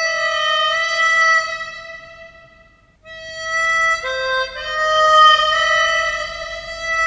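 Harmonica playing long held notes as a western-style score. The tone fades away about two seconds in and comes back a second later, stepping through a few notes.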